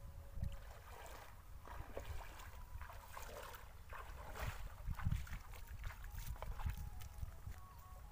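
Legs splashing through shallow, muddy water as a person wades quickly across a pond, the splashes thickest in the first half, with wind rumbling on the microphone throughout.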